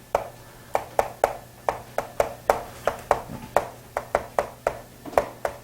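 Writing on a board: a quick, uneven run of sharp taps, about three or four a second, as the writing tool strikes the board stroke by stroke.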